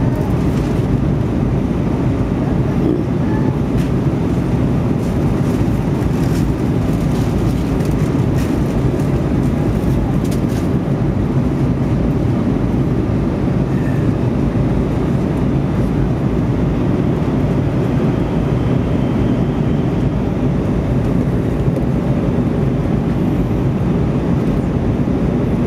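Airbus A320 cabin noise in flight: a deep, even rumble of engines and rushing air heard from inside the cabin by the wing.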